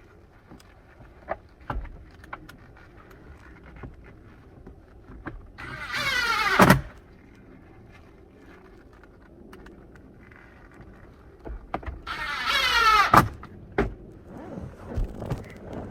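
A small electric motor whirring twice, about a second each time, its pitch sliding as it spins, with light clicks and knocks of handling between.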